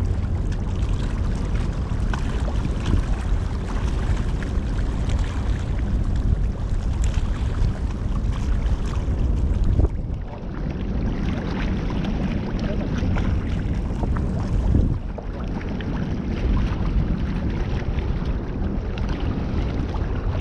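Wind buffeting the microphone in a steady low rush, with scattered light ticks over it.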